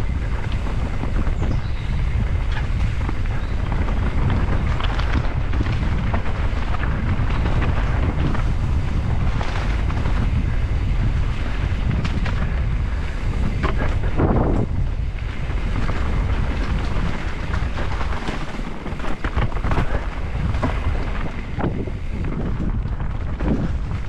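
Wind buffeting a helmet-mounted camera's microphone during a fast ride down a dirt trail, mixed with many short knocks and rattles from the bike going over rough ground.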